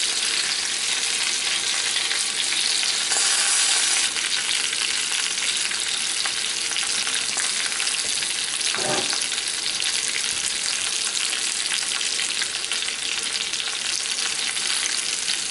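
Chicken breasts frying in bacon grease in a cast iron skillet: a steady sizzling hiss, a little louder about three seconds in.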